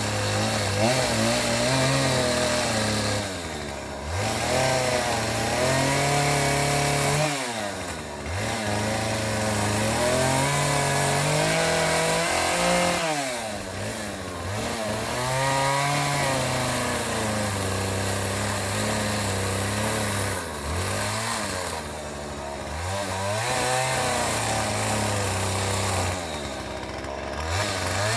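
Power tool motor running under load, its pitch sagging and climbing back every few seconds as it bogs and recovers.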